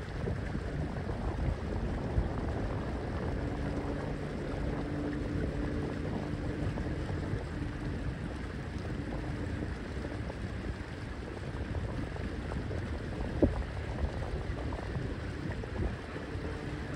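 A sailing yacht under way at low speed: a steady wash of water and wind noise, with a faint low hum for several seconds in the first half and a single sharp knock past the middle.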